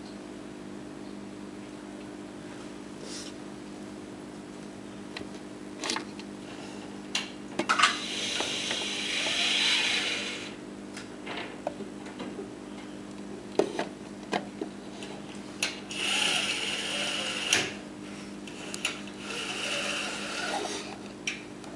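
A camcorder's small zoom motor whirring in three short runs of a second or two each, with scattered handling clicks over the camera's own steady low hum.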